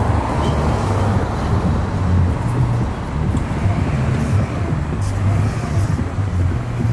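Steady low rumble of a motor vehicle engine running close by, with road-traffic noise.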